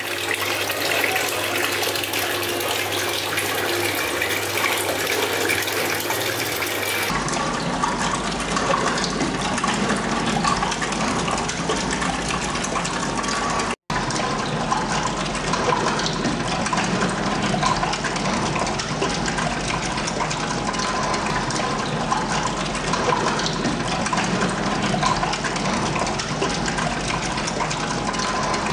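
Water gushing and churning steadily in a bathtub, with a brief cut-out about halfway through.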